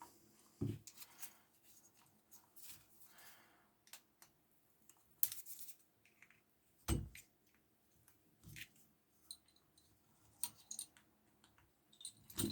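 Hands working on the small metal parts of a Stihl 020T chainsaw's cylinder and piston: scattered light metallic clicks and ticks, with two dull knocks, one just under a second in and one about seven seconds in.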